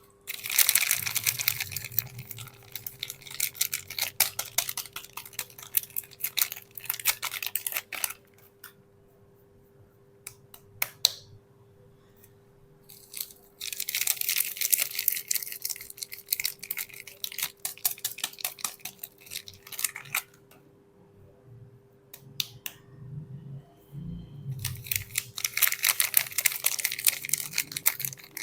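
Soap packaging being crinkled and torn open by hand in three long spells of dense crackling, with quieter pauses between them and a soft low knock or two before the last spell. A faint steady hum sits under it all.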